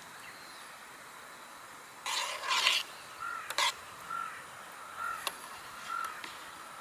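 A crow cawing: two loud, harsh caws about two seconds in, followed by a series of four shorter, softer calls about once a second.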